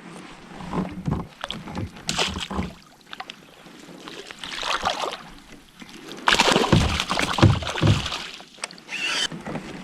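Water sloshing and splashing around a fishing kayak, with irregular knocks and rustles, as a hooked pike is worked in to the boat. The loudest bursts of splashing come in the second half.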